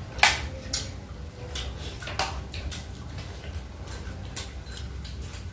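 Light, scattered clicks and clinks of steel pots, bowls and clam shells being handled while eating, the loudest about a quarter second in, over a low steady hum.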